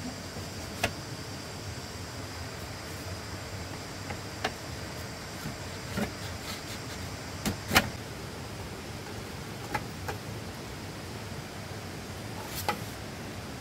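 Irregular knocks and clacks of bamboo poles being handled and fitted, about a dozen scattered sharp hits, the loudest a pair a little past halfway, over a steady high-pitched background drone.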